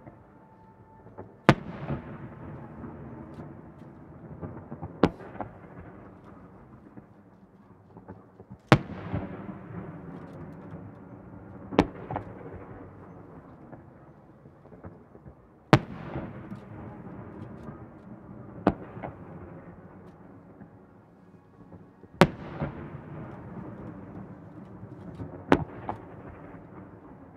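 Fireworks shells going off one at a time: about eight sharp bangs a few seconds apart, each followed by a long echo that dies away.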